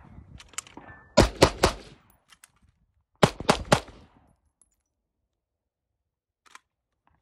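Gunshots fired in two quick strings: four shots about a second in, then three more about two seconds later from a handgun.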